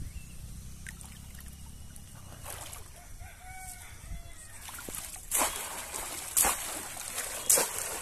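Shallow pond water splashing as a person wades and works a fishing net through it: a run of sharp splashes about a second apart in the second half. Before that, a rooster crows faintly in the background.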